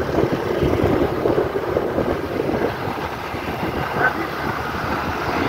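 Wind buffeting the microphone on a moving vehicle, over the steady rumble of engine and road noise.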